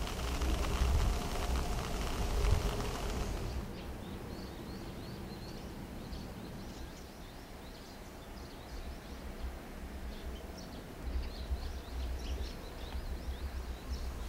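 Outdoor ambience: a steady hiss that drops away sharply about four seconds in, followed by faint, scattered bird chirps over an uneven low rumble.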